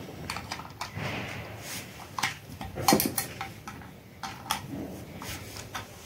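Irregular light clicks and taps of a small plastic dumbbell toy as a parrot bites at it and knocks it about with its beak.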